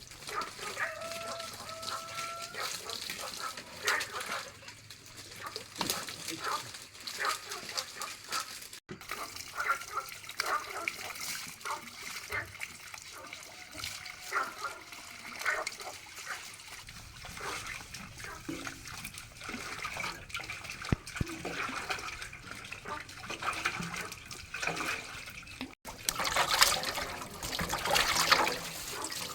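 Water splashing and trickling, mixed with poultry calling and scattered small knocks and clicks.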